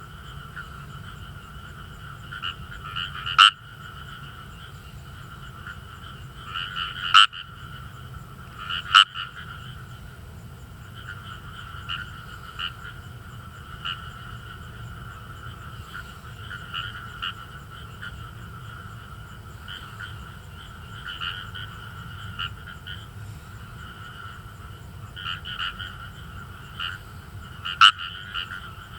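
Chorus of Indian rice frogs (Fejervarya kawamurai) calling, a steady mass of rapid, finely repeated "gueh-gueh" croaks. A few single calls ring out much louder than the rest, about three, seven and nine seconds in and again near the end.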